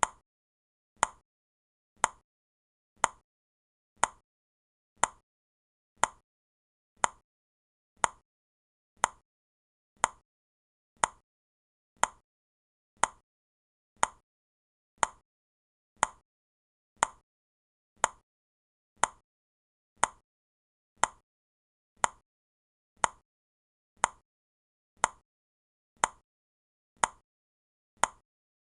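Countdown timer ticking, one short, sharp tick every second, evenly spaced.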